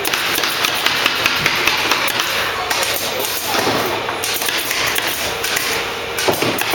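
Print-shop workroom noise: frequent sharp knocks and taps at irregular intervals over a steady hiss.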